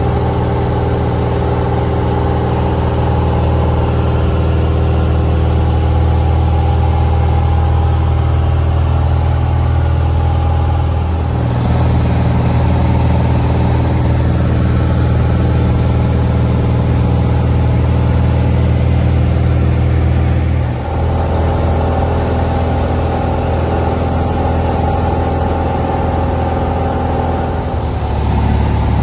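Light single-engine propeller plane's engine and propeller, a steady drone heard from inside the cabin. The tone jumps abruptly three times.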